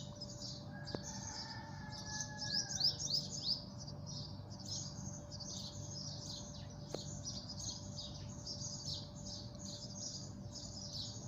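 Small birds chirping continuously in a dense chatter of quick, high chirps, over a faint steady hum.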